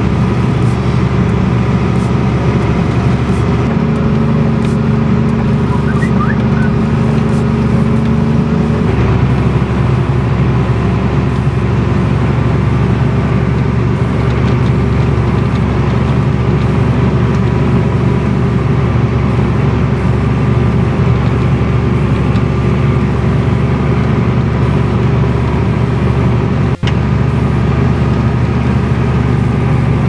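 Deutz-Fahr Agrotron MK3 150 tractor's six-cylinder 7.1-litre Deutz diesel engine running steadily while pushing a front snowplow through snow, heard from on board. The engine note shifts about nine seconds in, and there is a momentary dropout near the end.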